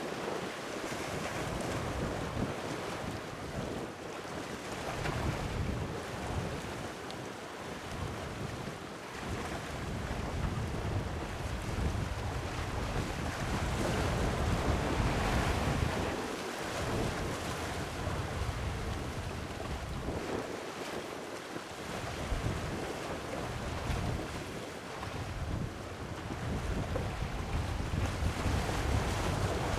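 Wind buffeting the microphone in uneven gusts over the steady wash of sea waves.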